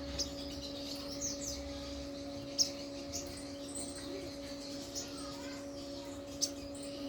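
Little spiderhunter (sogok ontong) giving short, sharp, high chip notes, about six of them scattered at irregular intervals, over a steady low hum.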